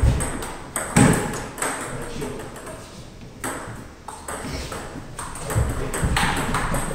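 Table tennis rally: the ball clicks sharply in quick succession as it hits the paddles and the table. A few heavier thuds come in among the clicks, about a second in and again near the end.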